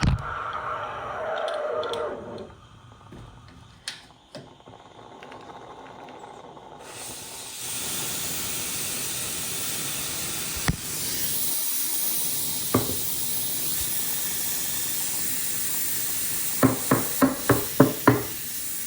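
Steam hissing steadily from an Atomic stovetop espresso maker, starting about a third of the way in. Two single sharp clicks come a few seconds apart, and near the end a quick run of about six knocks.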